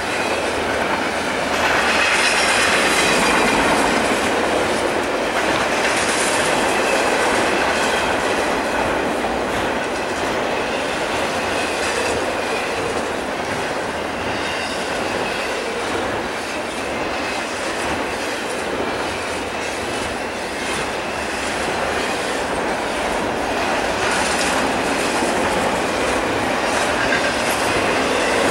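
Double-stack container train cars rolling past: a steady rumble and clatter of steel wheels on the rails, a little louder about two to four seconds in.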